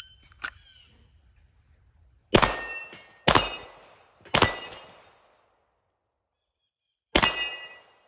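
Four pistol shots from a CANIK Rival-S at steel targets. Three come about a second apart, then one more after a pause of nearly three seconds, and each is followed by a metallic ring of struck steel plates.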